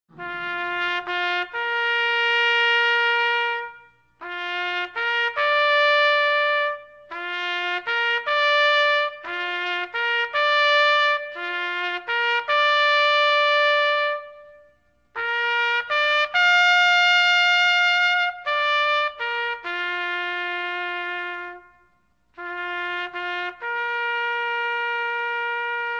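Solo trumpet playing a slow bugle-style call: six phrases, each of a few short notes climbing to a long held note, with short pauses between them.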